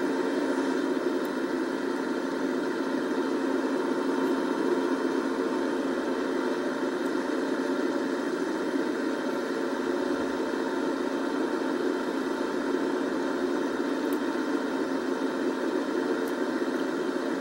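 Excavator's diesel engine running as a steady drone, with no breaks, knocks or changes in pitch.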